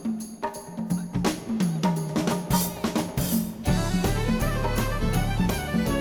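Live Irish traditional band music: drum and percussion beats under a melody line. About three and a half seconds in, a cymbal swell leads into the full band with a steady low bass.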